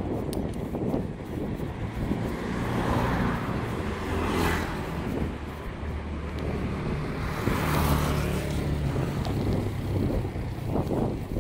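A motorcycle engine running nearby, a steady low hum that grows louder through the middle as it passes, heard from a moving bicycle.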